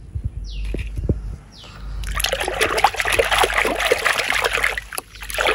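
A hand splashing and sloshing through water in a plastic tub, starting about two seconds in and running as a dense, crackling splash. Before it come a few short falling chirps and some low knocks.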